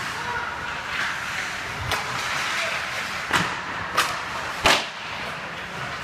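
Ice hockey play: skates scraping on the ice over rink noise, with four sharp clacks of sticks and puck in the second half, the loudest near the end as the puck is shot at the goal.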